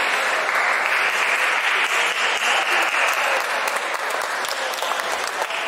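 The din of a busy table tennis hall: a dense, steady clatter of many balls striking tables and bats at once, with a few sharper single clicks in the second half.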